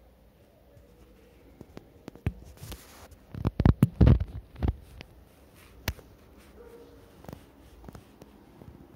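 Irregular clicks and knocks, with a quick run of louder thumps in the middle, about three and a half to five seconds in.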